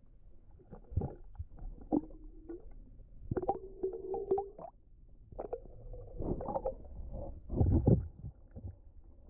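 Muffled underwater thumps and knocks, about five of them, several running on into a short low hum; the loudest comes near the end.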